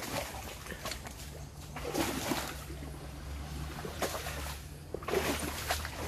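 An elephant's feet squelching and splashing through wet mud as it walks, with louder, splashier steps about two seconds in and again near the end, over a steady low rumble.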